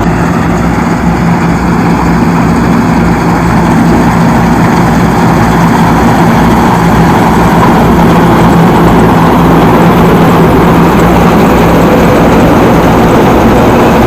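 Combine harvester running loudly and steadily: a heavy diesel engine with the rush of the threshing machinery and a regular low throb underneath.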